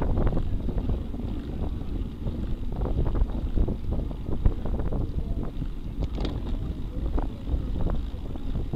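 Wind buffeting the microphone of a bike-mounted camera on a road bicycle riding at speed, over a steady low rumble of tyres on asphalt, with scattered small clicks and rattles.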